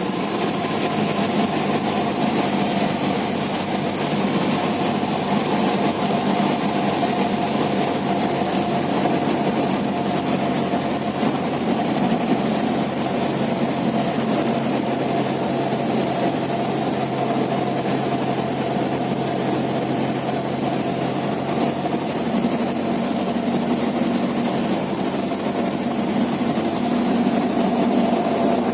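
Cessna 172's piston engine and propeller running with a steady drone, its low hum strengthening slightly about three-quarters of the way through.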